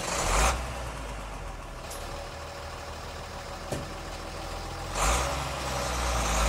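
Iveco Stralis truck's diesel engine idling with a steady low rumble. Two brief rushing swells of noise come near the start and again about five seconds in.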